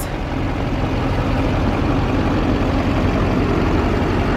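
Lifted GMC pickup truck's engine idling steadily, a low even rumble.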